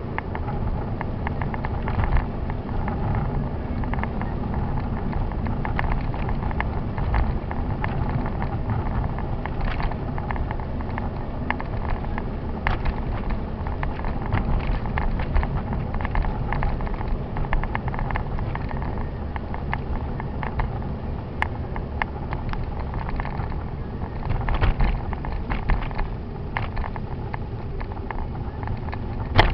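Car interior noise picked up by a dashcam while driving on a snow-covered road: a steady low engine and road rumble with frequent irregular clicks and rattles.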